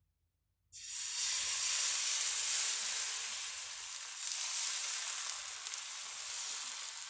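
Thin rice batter for neer dosa hitting a hot non-stick pan and sizzling. The sizzle starts suddenly just under a second in and slowly dies down as the batter goes on being poured.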